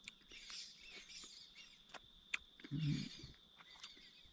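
Faint outdoor ambience: bird chirps over a steady high-pitched whine, with a sharp click a little past two seconds and a brief low murmur about three seconds in.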